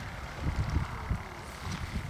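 Wind buffeting the microphone in uneven low rumbling gusts.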